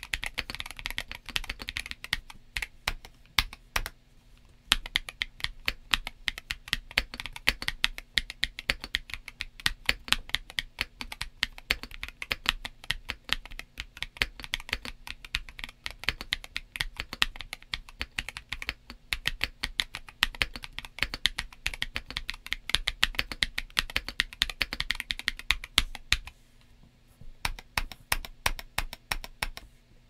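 Typing on a stock Tac Works T3 aluminium 65% keyboard with G-Square Dark Warrior switches and MG Ember Dusk double-shot ABS keycaps: a fast, steady stream of keystrokes, broken by two short pauses, about four seconds in and a few seconds before the end.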